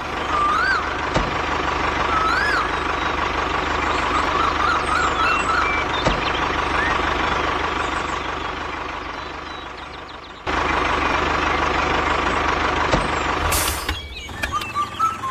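A motor or engine running steadily, with the sound cutting off and starting again sharply about ten and a half seconds in. Bird-like chirps sound over it in the first half.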